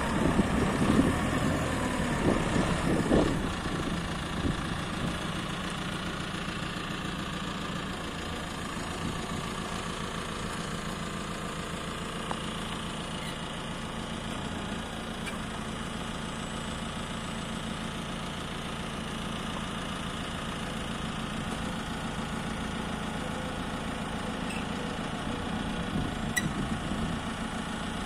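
JCB 535-140 telehandler's diesel engine running, louder and uneven for the first few seconds as the machine manoeuvres, then settling to a steady idle. It rises briefly again near the end.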